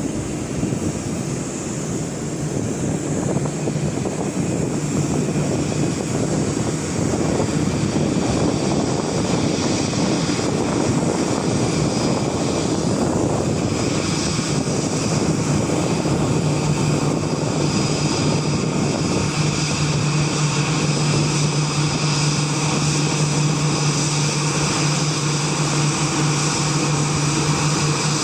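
Boeing 787 jet engines running steadily, a low hum with several higher whining tones over a broad rush of noise; the low hum grows stronger about halfway through.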